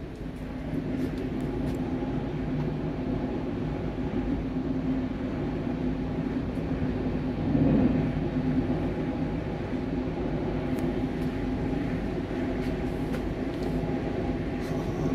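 Running noise inside a moving passenger train carriage: a steady rumble of wheels on track with a hum of several steady tones, swelling briefly about halfway through.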